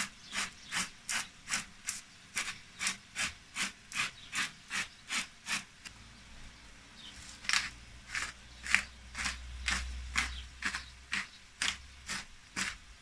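Hand-turned spice mill grinding seasoning, rasping clicks about two or three a second. It stops about six seconds in, then grinds again in a less even run from about seven and a half seconds on.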